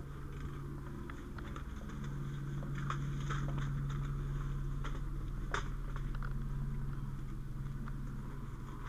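Brush and debris rustling and snapping, with scattered clicks and knocks from a ground ladder being moved through an overgrown yard; a sharp knock about five and a half seconds in. A steady low hum of running machinery sits under it throughout.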